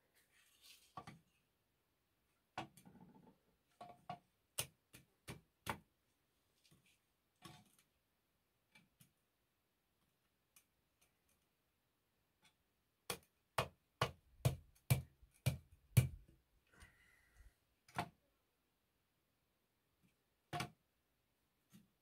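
Sharp, scattered taps and knocks, with a quick run of them a little past halfway through, the loudest near its end.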